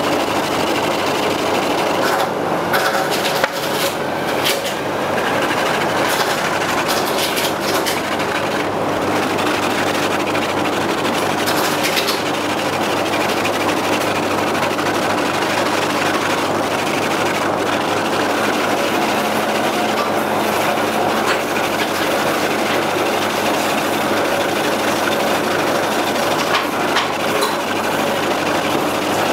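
A machine running steadily, with scattered clicks and knocks in the first half.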